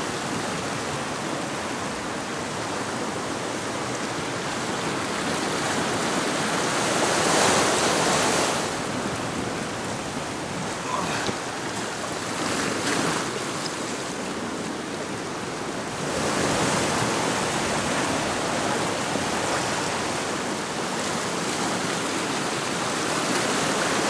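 Sea swell washing against a rocky shoreline: a steady rushing wash that swells louder a couple of times.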